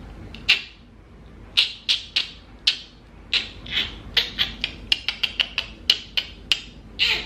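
A person imitating a dolphin with the mouth: a run of short, sharp squeaky clicks, sparse at first, then coming faster, several a second, through the second half.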